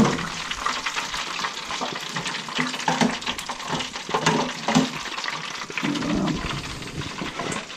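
Hot oil sizzling and bubbling in an electric deep fryer, with scattered light clinks and taps as the wire fry basket and the fried fish are handled.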